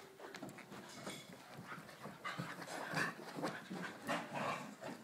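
Dogs play-fighting at close range, panting hard amid scuffling noises, with louder bursts in the second half.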